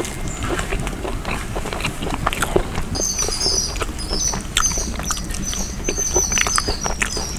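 Close-miked eating: chewing and lip-smacking as rice and chicken curry are eaten by hand, with soft squelches of the food being mixed. Repeated high chirps join from about three seconds in.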